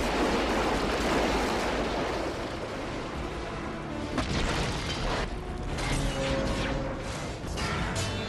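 Film sound effects of a diesel locomotive smashing through a car: a dense rumble of crushing, grinding metal for about three seconds. Then comes a series of sharp crashes and bangs of breaking steel and debris, over a film score.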